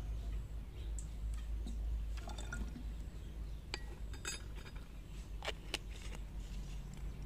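Liquid poured from a plastic bottle into a metal spoon and tipped into a plastic bottle, then a metal spoon clinking down and a few sharp clicks as a plastic screw cap goes back on the bottle.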